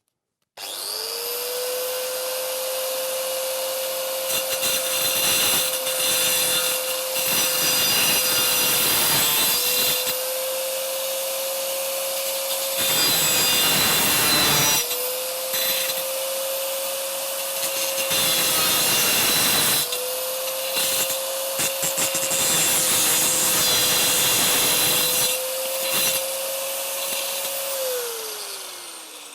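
Angle grinder fitted with a stone-cutting disc, starting up and grinding off protruding steel screw tips. The motor note sags briefly several times as the disc bites into the metal. Near the end it is switched off and winds down.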